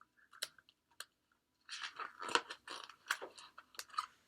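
Irregular crinkling, crunching clicks of something being handled close to the microphone: a few scattered clicks at first, then a dense run starting a little under two seconds in that thins out near the end.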